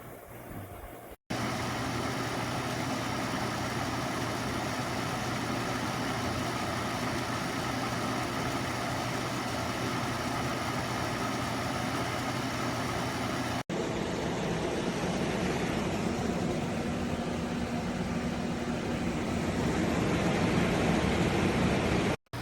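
SereneLife 10,000 BTU portable air conditioner running: a steady rush of fan air with a low hum, in separate takes that cut off sharply. In the last take a steady low tone joins in and the sound gets a little louder near the end.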